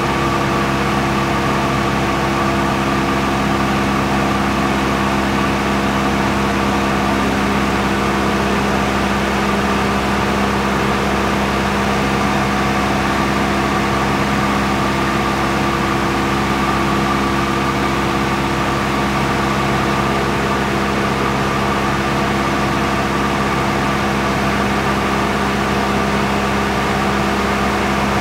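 Steady drone of an aircraft's engine or rotors, several constant tones at one unchanging pitch with no let-up.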